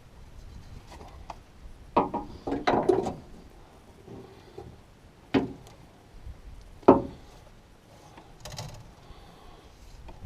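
Hand work with parts and tools: a quick cluster of knocks and clatter about two seconds in, two single sharp knocks a second and a half apart in the middle, and a brief rattle near the end.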